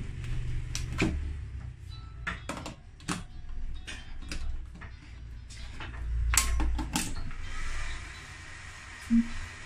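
Plastic clicks and knocks of a power plug being worked into a power strip and its cord handled. About seven and a half seconds in, a steady whirring hiss starts: the Megatec mini inverter welder's cooling fan running once it has power.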